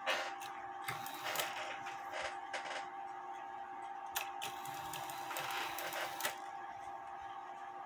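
Regula 701 cuckoo clock movement being tripped by hand on a test stand: irregular mechanical clicking and clattering from its levers and gear train, with a steady faint hum underneath.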